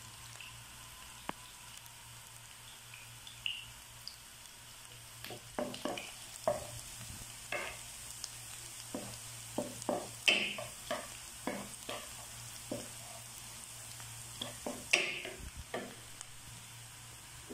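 Julienned ginger frying in hot oil in a nonstick pan with a faint, steady sizzle as it toasts. From about five seconds in, a wooden spatula stirs and scrapes against the pan in a run of short knocks.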